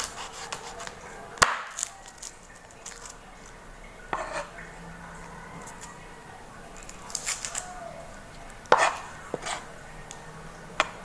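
Kitchen knife cutting vegetables on a cutting board: scattered sharp knocks and taps a few seconds apart, the loudest about a second and a half in and near the end.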